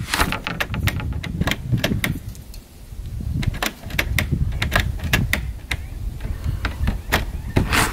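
Irregular sharp clicks and knocks, several a second, over a low rumble: hand work on a door's smart-lock hardware as the last screw is driven in.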